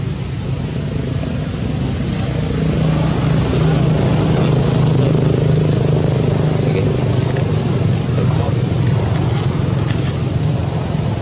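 A steady engine drone, growing a little louder about three seconds in, over a constant high hiss.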